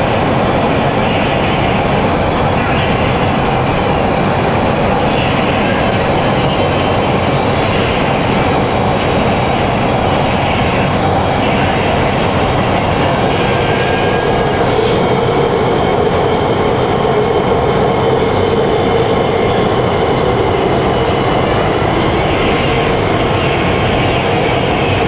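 Steady running noise of a Nanchang Metro Line 2 train heard from inside the passenger car: wheels on rail carrying the car along at speed, with a few faint clicks.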